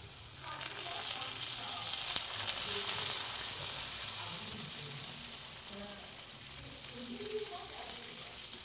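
Sizzling hiss from hot, fresh-baked buns on a metal baking tray as melted butter or oil is brushed over them. It starts just after the beginning, swells over the first few seconds, then slowly dies down.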